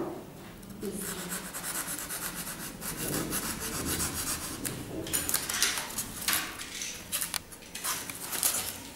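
A block of expanded polystyrene foam being rubbed and scraped by hand, a rough scratchy rasping in many short strokes.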